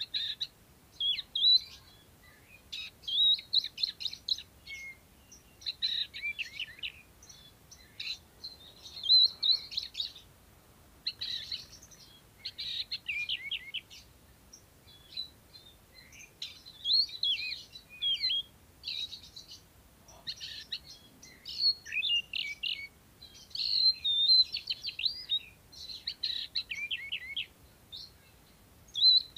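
Caged oriental magpie-robin singing continuously in phrases of a second or two: clear sweeping whistles mixed with fast chattering trills, separated by short pauses.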